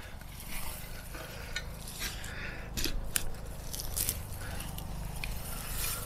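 Garden fork digging into dry soil, the metal tines scraping and crunching through crumbly earth and small stones in a string of short, irregular scrapes and clicks.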